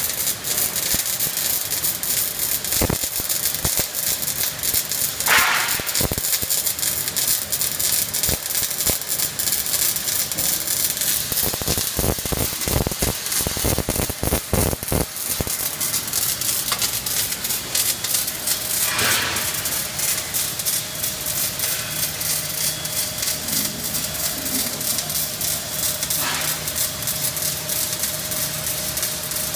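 Arc welding from an OTC Daihen FD-B4L welding robot, crackling and sizzling continuously as the torch lays a bead, with a few louder flares of crackle along the way.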